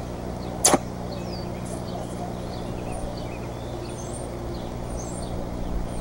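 A bald eagle sneezing once, a short sharp burst about a second in. Small birds chirp faintly throughout over a steady low hum.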